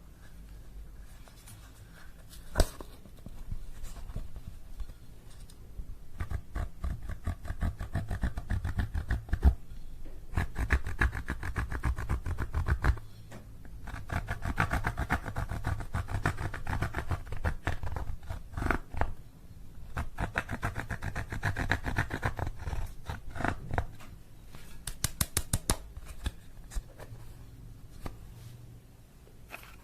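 Slime being squished and kneaded by hand, making rapid wet clicking and popping sounds in several bursts of a few seconds each, with an occasional sharper pop.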